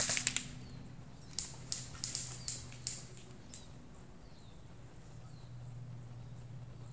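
A string of sharp clicks and snaps, irregularly spaced a fraction of a second apart, in the first half, then a low steady hum with a few faint, short, falling chirps from a small bird.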